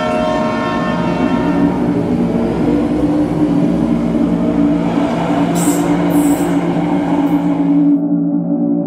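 Passenger train running past along a station platform: a steady rumbling drone, with a few brief high screeches from about five to seven seconds in. About eight seconds in the train sound cuts off abruptly, leaving a low sustained gong-like tone.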